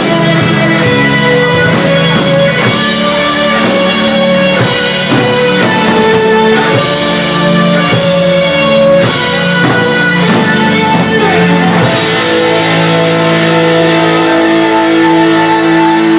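A live rock band playing, with guitars to the fore. Near the end the band settles into a long held chord.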